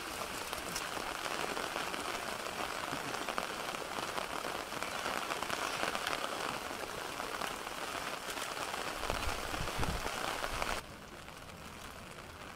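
Steady rain falling, an even hiss with fine pattering. There is a brief low rumble about nine seconds in, and just before eleven seconds the sound drops suddenly to a quieter hiss.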